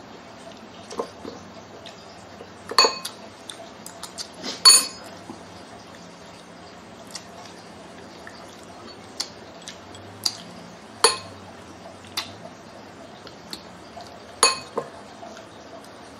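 Spoons clinking and scraping against ceramic bowls and plates while eating: about a dozen sharp, scattered clinks, the loudest about four and a half seconds in.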